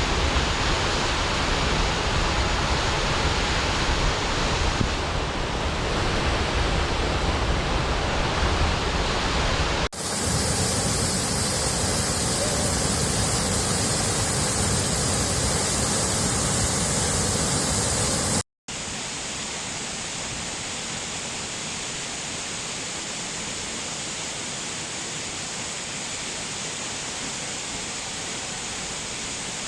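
Waterfalls: a steady rush of falling water, in three separate recordings joined by abrupt cuts about ten and about eighteen seconds in. The first is deeper and rumbling, the second brighter and hissier, and the last quieter, with a moment of silence at the second cut.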